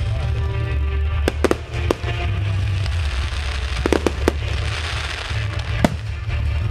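Aerial fireworks bursting in a series of sharp bangs: a few about a second and a half in, a cluster around four seconds and one near six seconds. A crackling hiss comes from the crackling stars around the middle, and music plays underneath.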